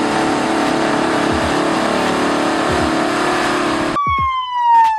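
Bulldozer engine sound effect, a heavy engine running steadily. About four seconds in it cuts off suddenly and a police siren begins, one wail falling slowly in pitch.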